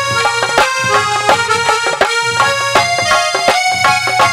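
Instrumental break of a live Languriya folk song: a keyed melody instrument plays a held, stepping tune over regular dholak drum strokes.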